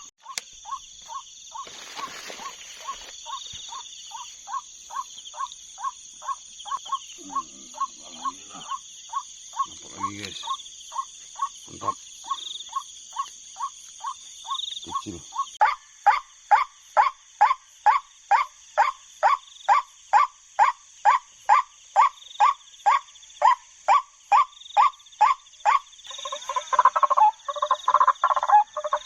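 An animal call repeated very regularly, about two to three times a second, growing louder and fuller about halfway through, over a steady high-pitched chorus of night insects.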